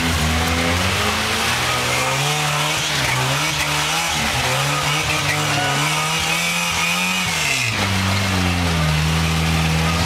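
Engine of a Toyota pickup rock crawler revving, its pitch rising and falling as the truck crawls over rock ledges, then dropping abruptly to a steady lower speed about eight seconds in.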